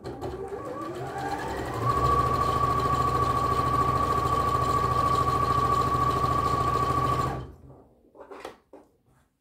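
Bernina B 38 computerized sewing machine stitching a seam. Its motor whine rises over about the first two seconds as it speeds up, holds at a steady fast stitch, then stops abruptly about seven seconds in. A few faint clicks follow.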